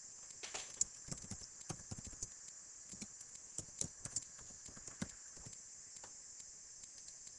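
Computer keyboard keys clicking in an irregular run of typing, thinning out after about four seconds, over a steady faint high hiss.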